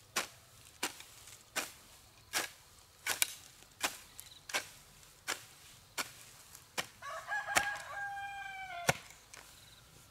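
A rooster crows once, a steady call of about two seconds starting some seven seconds in. Under it run sharp, evenly paced strikes, roughly one every three-quarters of a second.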